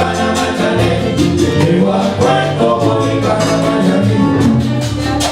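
Cuban-style Latin music with singing over a bass line and a steady percussion beat.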